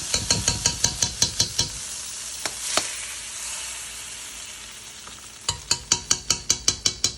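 Butter sizzling in a hot frying pan, with a utensil knocking against the pan in quick runs of strokes, one at the start and another near the end. The sizzle fades as it goes.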